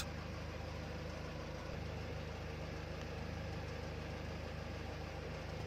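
Proton Wira 1.5 engine idling steadily with the air conditioning switched on while the system takes its refrigerant charge: an even, unchanging low hum.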